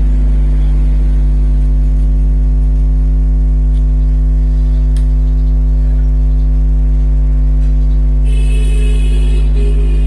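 Loud steady electrical mains hum at 50 Hz with its overtones, with a brief high-pitched squeak about eight seconds in.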